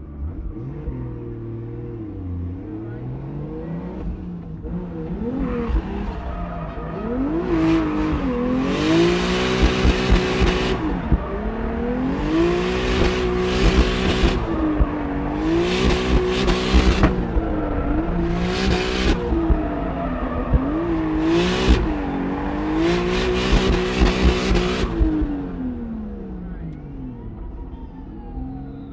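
Turbocharged 1JZ-GTE inline-six in a BMW E36 M3 drift car, running steadily at first, then revved hard and held high again and again with brief dips between, about six times. Bursts of tyre noise from the slides come with the high revs, and the engine drops back near the end.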